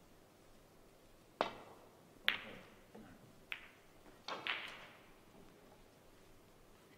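Snooker shot: the cue tip strikes the cue ball, then a sharp click as the cue ball hits a red, followed by a few more clicks and knocks as the balls strike each other and the cushions. About six strikes in all, spread over roughly three seconds, the loudest near the start.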